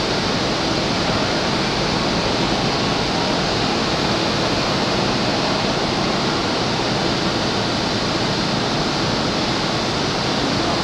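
Steady, even rushing noise at a station platform while an E531-series electric commuter train stands idle at the track.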